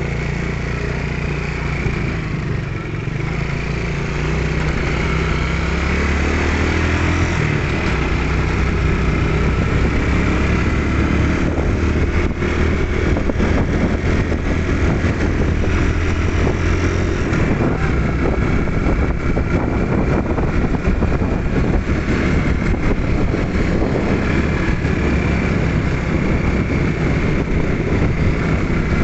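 Motorcycle engine pulling away and picking up speed, its pitch rising over the first several seconds, then running steadily at riding speed.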